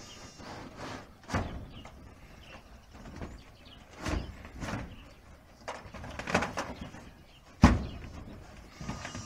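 Irregular knocks and clanks from corrugated metal roofing sheets as a solar panel is handled and shifted on them. About five separate thumps, the loudest about seven and a half seconds in.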